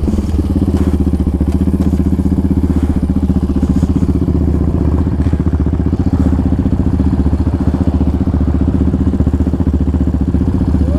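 Yamaha Raptor 700R quad's single-cylinder four-stroke engine idling, a steady, even pulse that holds at one pitch.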